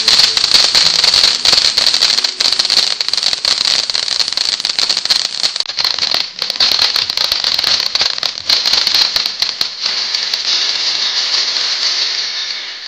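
Ground fountain firework spewing sparks: a loud, steady hiss shot through with dense crackling. The crackle thins out about ten seconds in, leaving mostly the hiss, which drops in level near the end.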